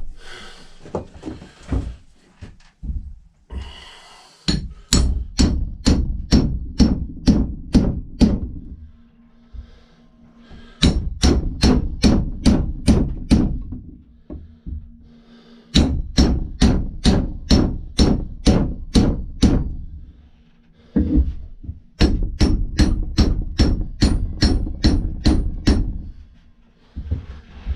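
Hammer blows on steel, in four runs of quick, even strikes about four a second with short pauses between, each run with a ringing note: driving the stuck old handle wood out of an axe head's eye.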